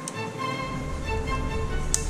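Instrumental background music playing a melody. A sharp click comes near the end, with a fainter one at the start.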